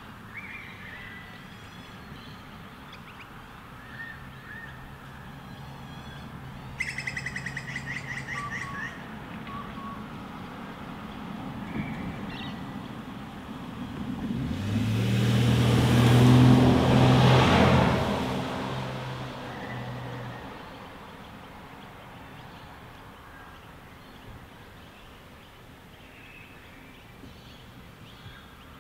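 Outdoor ambience with scattered bird chirps and a rapid rattling trill about seven seconds in. A car passes by, rising to its loudest about sixteen seconds in and fading away by about twenty seconds.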